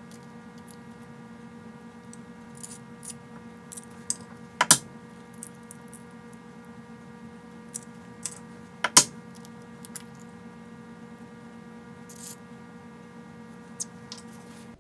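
Eggs being cracked and separated into ceramic bowls: two sharp cracks of shell about four seconds apart, the second the loudest, with lighter clicks and taps of shell between, over a steady hum.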